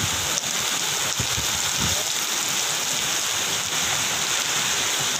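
Heavy rain pouring down steadily, with gusts of wind rumbling in the first couple of seconds.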